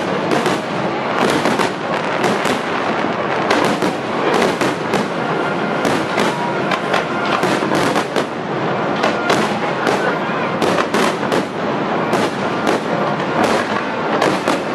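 Aerial fireworks display in a dense barrage: many shell bursts and crackling stars go off together, giving a continuous wash of explosions with several sharp pops and cracks every second.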